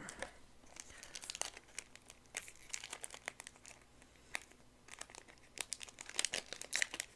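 Trading-card booster pack wrapper crinkling in the fingers as it is torn open: a string of irregular small crackles, thicker near the end.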